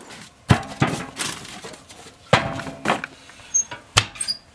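Cast-iron wood-burning stove being handled at its open door: five sharp knocks and clanks, some with a short metallic ring.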